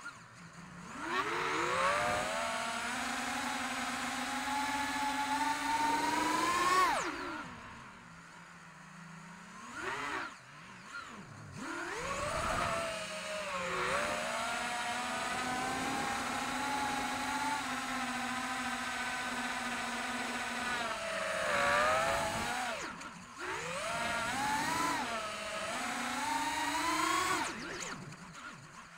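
The four brushless motors and propellers of a 5-inch FPV racing quadcopter on a 4S battery whine at high throttle, heard from a camera mounted on the drone. The pitch rises as the throttle is punched and the sound drops away several times when the throttle is cut for flips and dives: about seven seconds in, around eleven seconds, around twenty-three seconds, and near the end.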